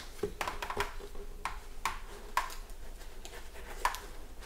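Hands working inside a motorcycle helmet's liner and shell, pulling a speaker wire out from under the padding: several irregular light clicks and taps.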